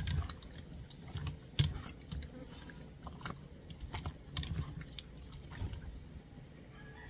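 Hands squeezing and kneading raw boneless chicken thighs in a bowl of liquid seasoning marinade: wet squelching with irregular sticky clicks and soft thumps.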